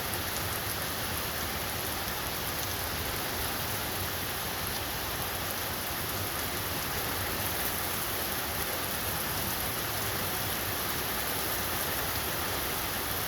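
Rain falling steadily: an even hiss with fine pattering drops from a South Florida afternoon rain storm.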